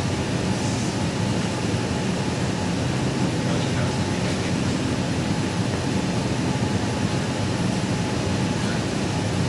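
Steady rushing noise of a moving car: road and wind noise.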